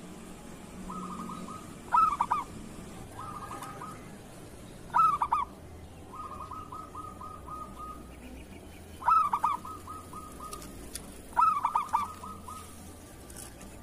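Zebra dove (perkutut) cooing. Four loud phrases of rapid staccato coos come every few seconds, and softer, even trilling runs of coos fill the gaps between them.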